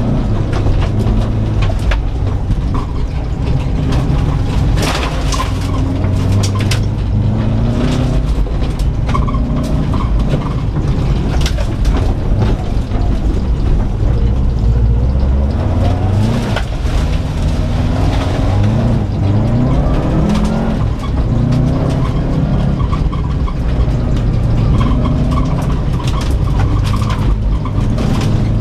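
2004 Subaru Impreza WRX STI's turbocharged 2.5-litre flat-four, heard from inside the cabin, revving up and dropping back again and again as it is driven hard on a dirt rallycross course. Sharp knocks and clicks come throughout.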